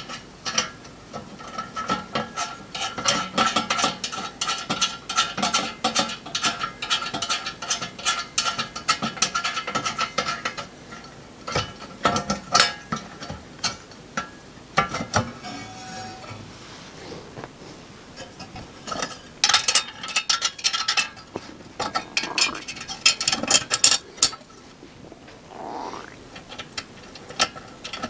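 Small steel nuts being spun by hand down threaded studs to fasten a welded burner mount plate onto a sheet-steel forge body: runs of fine metallic clicking and rattling, busiest in the first ten seconds, then in short bursts near the end.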